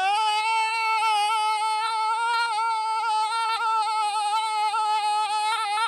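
A person's long, high-pitched scream held on one steady note.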